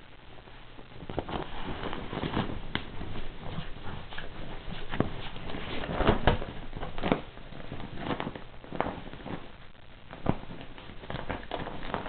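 A miniature pinscher worrying a deflated plastic ball: the plastic crackles and flaps with thumps in quick, uneven bursts from about a second in. It is loudest about six seconds in, when the dog shakes the ball hard.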